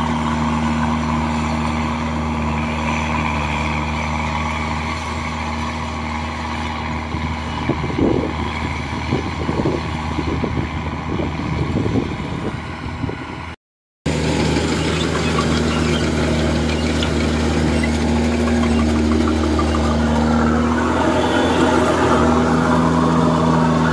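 Kubota DC-105X rice combine harvester running steadily under load as it cuts and threshes, its diesel engine giving a constant low drone. The sound drops out completely for a moment just over halfway through, then resumes heard from close beside the machine.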